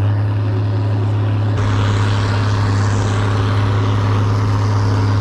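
Snowcat diesel engine pulling under load with a steady, even drone. A rushing noise of moving snow and air grows louder about a second and a half in as it gets under way.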